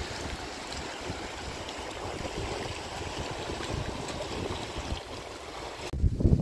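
Fast-flowing river rushing over stones, a steady rush of water. About six seconds in it cuts off abruptly to gusting wind rumbling on the microphone.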